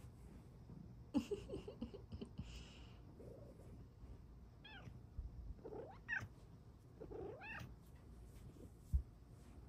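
Bengal cat giving three short meows about a second apart in the second half. Earlier come some brief scuffling sounds, and there is a thump near the end.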